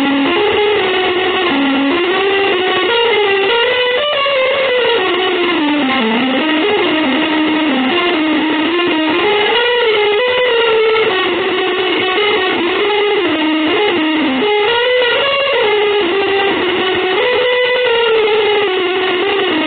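Electric guitar playing a single winding melodic line that rises and falls without pause.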